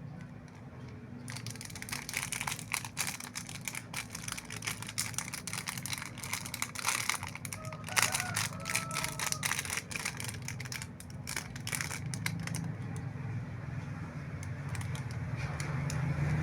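Plastic packaging of Yupi Berri Bonz candy crinkling and crackling as it is handled and opened. It starts about a second in and thins out after about twelve seconds, over a low steady hum.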